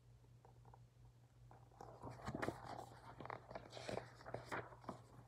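Pages of a hardcover picture book being turned and handled: faint paper rustling and crinkling with light clicks, busier from about two seconds in.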